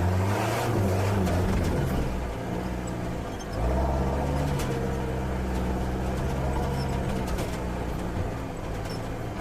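Off-road 4x4 vehicle engine running, easing off briefly, then picking up louder about three and a half seconds in and holding a steady note.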